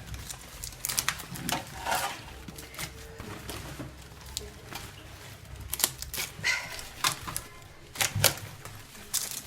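Fresh banana leaves crackling and rustling in irregular clicks as they are folded and tucked over matooke in a saucepan to seal in the steam.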